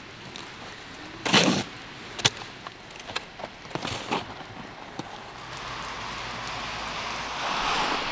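A shovel digging into packed snow and ice around a parked car's tyre: a long scrape about a second in, followed by several sharp hits and scrapes. In the second half, a steady outdoor rush builds and grows louder near the end.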